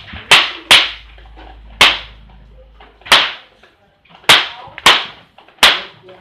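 Hinged jaw of a barongan (lion-dance) mask snapping shut, about seven sharp clacks at uneven intervals, each with a brief ring.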